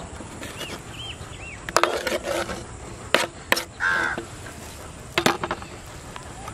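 Birds calling: three short chirps, then harsher calls, with several sharp knocks in between.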